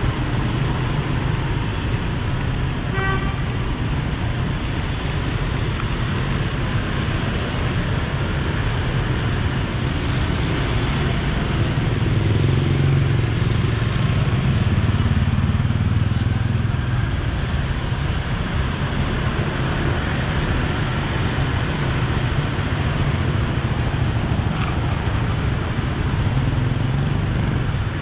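Busy street traffic of motorbikes and cars, engines running steadily, growing louder about halfway through as vehicles pass close. A short horn toot sounds about three seconds in.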